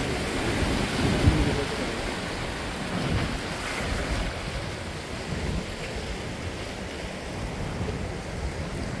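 Sea waves washing over and breaking against shoreline rocks, foaming as they surge in, a little louder in the first couple of seconds. Wind rumbles on the microphone underneath.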